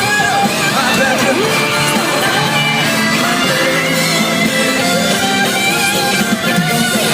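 Live band music with a singing voice and guitar, played loud and steady.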